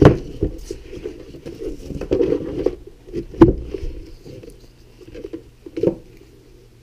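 A plastic box and its strap being handled: scattered rustles and light knocks, with one sharp click about three and a half seconds in and a smaller knock near six seconds.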